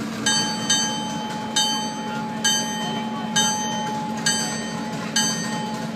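Locomotive bell ringing steadily, about one strike a second, over the steady hum of the train.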